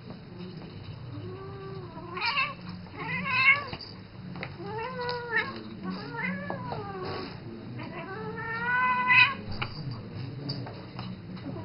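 Siamese cat giving a string of drawn-out, wavering meows, about six calls, the longest near the end rising in pitch.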